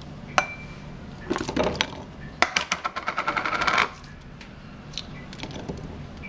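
Garlic cloves and shallot pieces being handled against a ridged plastic bowl and a ceramic bowl: a single sharp clink, some rattling, then a fast run of clicks that grows louder and stops abruptly about four seconds in.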